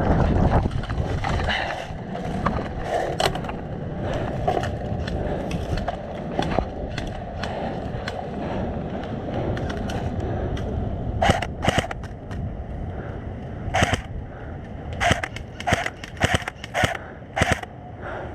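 Wind buffeting the microphone and rustling gear movement. From about eleven seconds in comes a string of about ten sharp cracks, irregularly spaced: airsoft guns firing.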